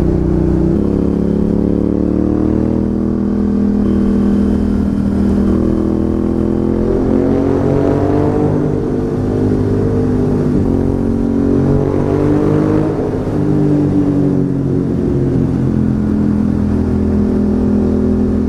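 Ducati Hypermotard 1100 S's air-cooled L-twin engine running on the move. Its pitch drops suddenly about a second in, then rises and falls several times as the throttle is opened and closed.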